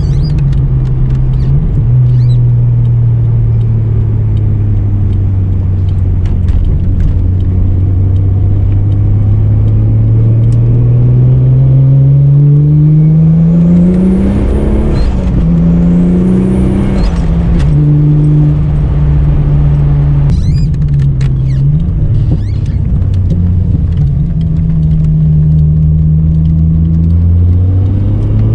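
Holden VL Turbo Commodore's turbocharged 3.0-litre straight-six running while the car drives: a steady cruise, then the revs climb about halfway through, break at gear changes with a brief high whistle, settle to a steady pitch and climb again near the end.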